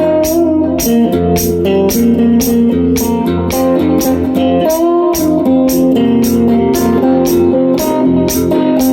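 Improvised guitar music: a guitar plays a melodic line of held notes over a steady bass line, with a regular beat of high ticks about four times a second.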